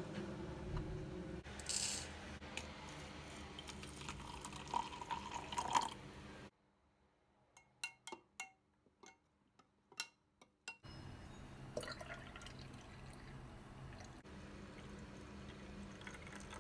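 Kitchen handling sounds: liquid dripping and pouring and glass clinking, broken by a near-quiet stretch of a dozen or so sharp ticks in the middle.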